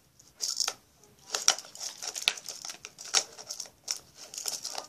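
Hands fitting a plastic tag onto a squishy toy: irregular crinkly rustling with small clicks, a brief pause about a second in.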